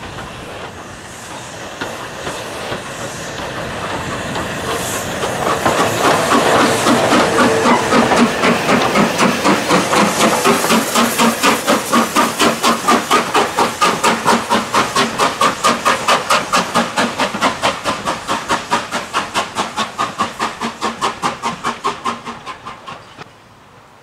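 BR Standard Class 4MT 4-6-0 steam locomotive No. 75069 working along the line, its exhaust chuffing in even beats about three a second over a hiss of steam. The beats grow louder, then fade and cut off about a second before the end.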